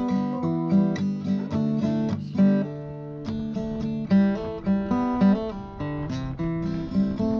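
Background music: an acoustic guitar playing a quick run of plucked notes over chords.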